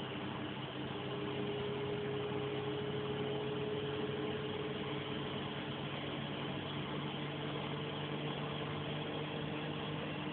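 Bosch washing machine's motor and drum running steadily, a hum with a faint whine over a constant rushing hiss, the pitch of the whine shifting slightly.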